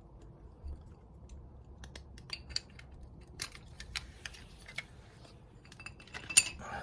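Motorcycle brake pads and their thin metal backing plates being handled, giving scattered small metallic clicks and clinks, with a sharper clink near the end.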